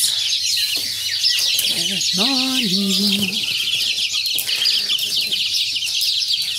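A cage of young chicks cheeping without pause, a dense chorus of many short high peeps. One lower, drawn-out call wavers in pitch about two seconds in.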